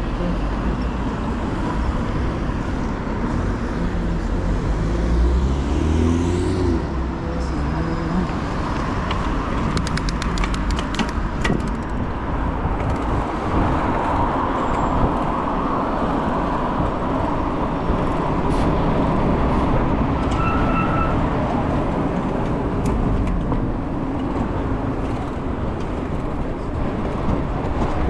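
Road traffic noise with wind rumbling on the microphone of a camera on a moving bike, with a short beep about twenty seconds in.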